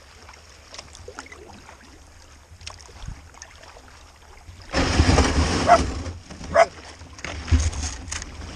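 Canoe moving on the water: a few faint knocks at first, then a loud spell of water and hull noise about halfway through and another near the end.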